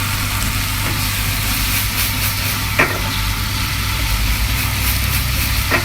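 Side vegetables sizzling in a pan just after a splash of sake, over a steady low hum, with a sharp knock just under three seconds in and another near the end.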